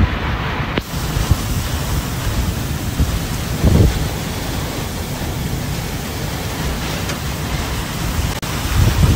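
Heavy rain driven by strong wind in a storm: a steady dense hiss, with a brief louder low rush about four seconds in.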